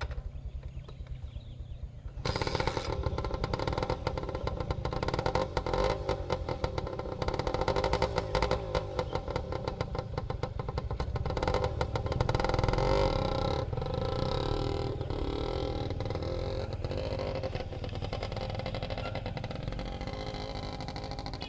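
Motorcycle engine running. It gets much louder and rougher about two seconds in, then slowly eases off over the second half.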